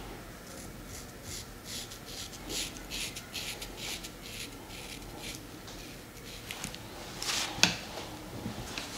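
Straight razor scraping through shaving lather on a bald scalp in a run of short, quick strokes, then a louder single sharp scrape with a click near the end.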